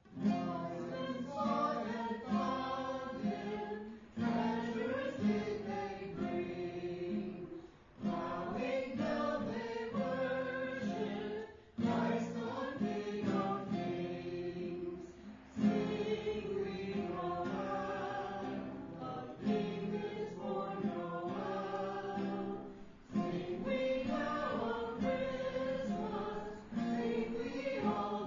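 A small group of men and women singing a Christmas carol together, accompanied by acoustic guitar, in phrases of a few seconds with short breaths between them.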